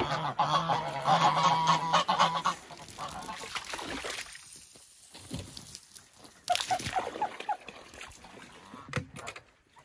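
Domestic geese honking, loud and rapid over the first two and a half seconds, then a run of about five shorter honks about seven seconds in.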